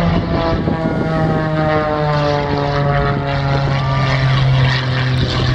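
Single-engine propeller aerobatic plane flying past, its engine and propeller drone falling slowly and steadily in pitch.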